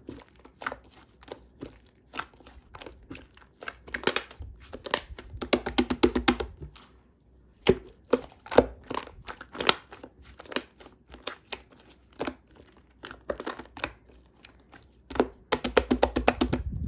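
Crinkling and clicking of packaging being handled, as a string of separate crackles with two quick rattling runs, one near the middle and one near the end.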